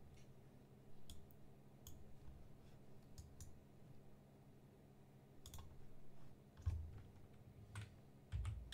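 Faint computer mouse clicks, about ten of them spaced irregularly, over a low steady hum.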